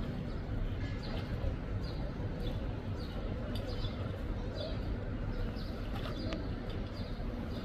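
A small bird chirping over and over in short high notes, about once or twice a second, over a steady low outdoor rumble.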